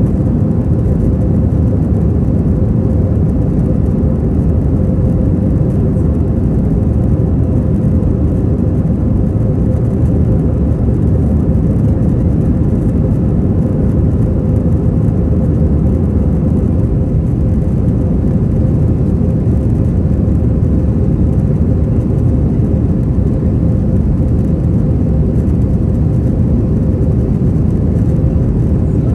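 Airbus A321 cabin noise during the climb: its CFM56 jet engines and the airflow over the fuselage make a steady, loud rumble heard from inside the cabin, with a thin steady tone running through it.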